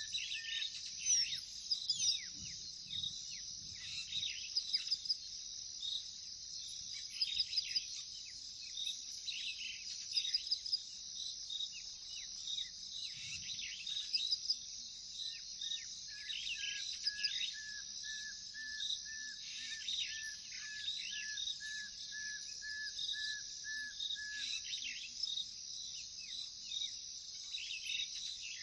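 Chorus of crickets trilling steadily, with several birds calling and chirping over it; a run of evenly repeated whistled notes starts about halfway through and stops a few seconds before the end.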